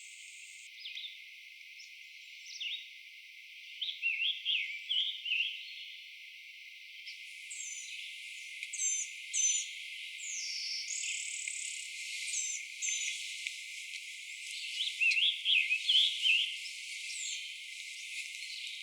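Birdsong: a blue-winged warbler giving its buzzy two-part song close by, and a scarlet tanager singing short burry phrases further back, with high thin calls of cedar waxwings passing over.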